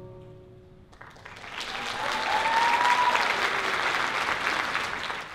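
The last note of the music fades, and about a second in a theatre audience breaks into applause that builds and holds, with a rising cheer in the middle of it. It cuts off abruptly at the end.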